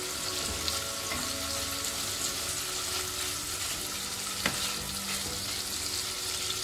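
Paneer cubes sizzling in butter and oil in a nonstick kadai, being turned with a spatula. One sharp knock about four and a half seconds in.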